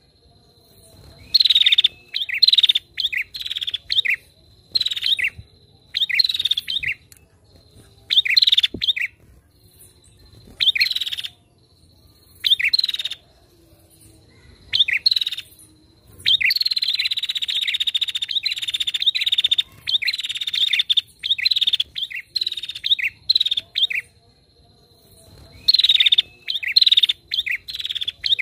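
Female prinia (prenjak) calling: short, sharp chirps in quick bursts of three to five, with a longer run of rapid chirps about halfway through. A faint steady high tone runs underneath.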